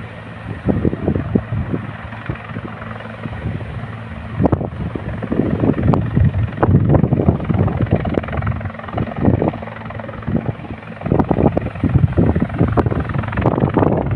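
Helicopter running steadily overhead, its rotor and engine making a constant low drone, with gusts of wind buffeting the microphone.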